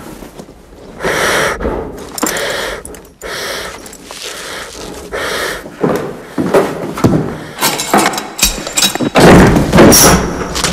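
Scuffing and shuffling in a gallows chamber, then a few sharp knocks and, about nine seconds in, a loud heavy bang and clatter as the gallows trapdoor is sprung and drops open.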